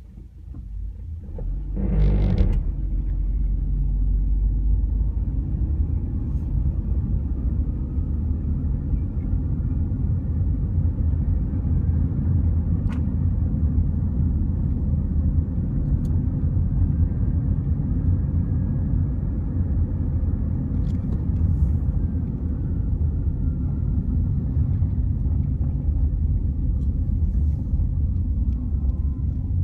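2004 Honda Civic Hybrid accelerating from a stop: a sudden loud burst about two seconds in, then a steady low rumble as the car keeps moving. The uploader puts this noise down to the CVT transmission belt slipping, a common fault on this model.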